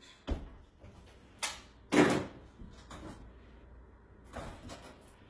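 Household handling noises: a thud, then a few short scraping or rustling sounds, the loudest about two seconds in.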